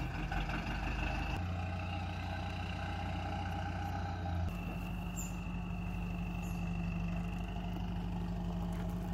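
Motorhome engine running at low speed as the vehicle pulls slowly forward. Its note changes about a second and a half in, and again about four and a half seconds in.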